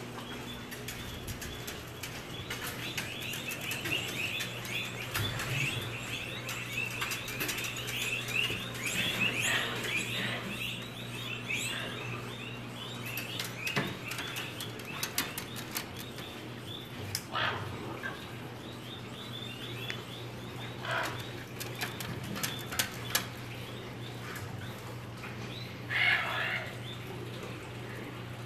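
Arctic foxes calling: a long run of rapid, high-pitched yips, then a few louder separate cries spaced further apart. Scattered clicks and taps come in around the middle, over a low steady hum.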